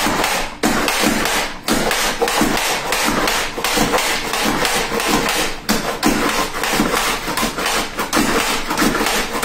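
Carrots being pushed through a Rapid Prep mandoline's julienne blade on its finest setting: the plastic plunger is pumped down again and again, making a loud, rapid run of chopping clacks, about two to three a second.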